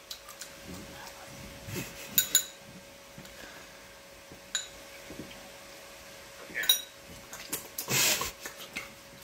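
Metal spoon clinking and scraping against a ceramic bowl while eating, with a handful of sharp, ringing clinks spread through. A short burst of rustling noise comes near the end.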